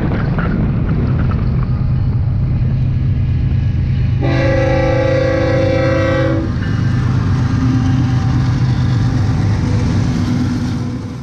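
Freight train's diesel locomotives passing a level crossing with a steady low engine drone. About four seconds in, the locomotive's multi-tone air horn sounds as one chord for about two seconds.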